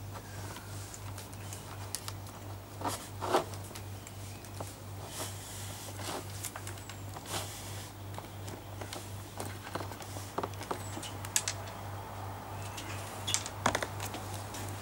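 Scattered light clicks, taps and rustles of model-plane parts being handled as the right wing is fitted onto its spar, with a few sharper knocks about three seconds in and near the end. A steady low hum runs underneath.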